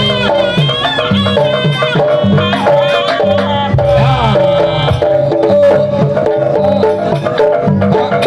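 Jaranan buto accompaniment music, loud and continuous: hand drums beating a busy rhythm under a pitched melody line and a steady held tone.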